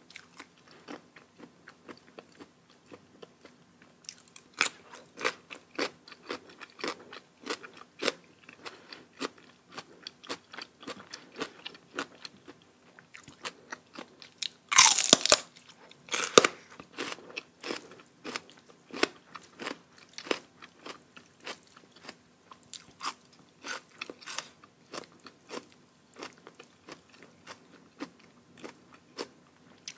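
Close-up chewing and crunching of crisp food, with many sharp, irregular bite clicks and one louder, longer noisy burst about halfway through.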